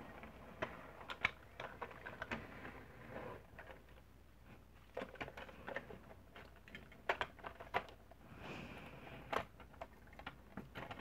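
Scattered light clicks and taps of a toy truck being handled on a tabletop, its hinged trailer ramp being opened.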